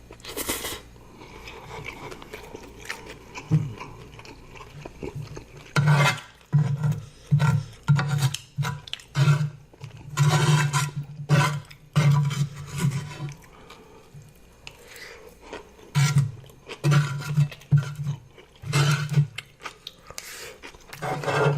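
A person eating close to the microphone, with quiet stretches and runs of short, loud mouth sounds about one and a half a second.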